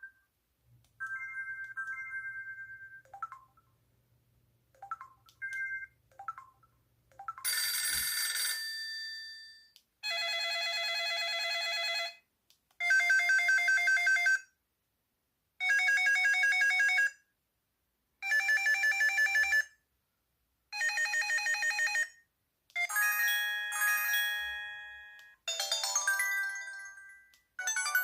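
Samsung Anycall SPH-C2205 slide phone playing its built-in ringtones and effect sounds one after another through its small speaker. First come a few short beeps and chimes, then five ring bursts of about a second and a half each with short gaps, then short melodic jingles near the end.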